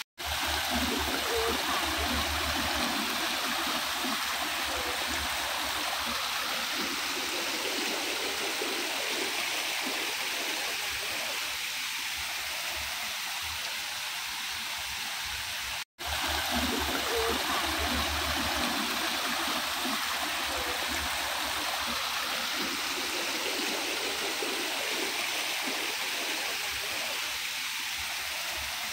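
Water falling over a rock garden waterfall and splashing into a pond: a steady rush of water, cut off for an instant at the start and again about halfway through.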